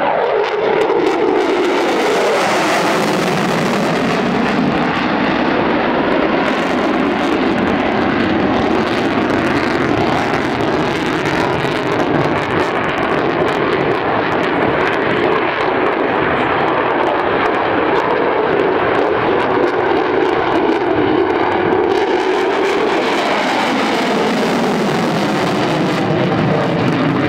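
Lockheed Martin F-22 Raptor's twin Pratt & Whitney F119 afterburning turbofan engines, a loud, steady jet noise as the fighter flies past and manoeuvres. The pitch drops sharply as it passes at the start, then wavers up and down through the turns. The afterburners are lit near the end.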